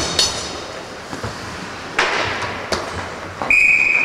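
A referee's whistle blows one steady, loud blast lasting about a second, starting a little past three seconds in, after a few sharp knocks of hockey play, the loudest about two seconds in.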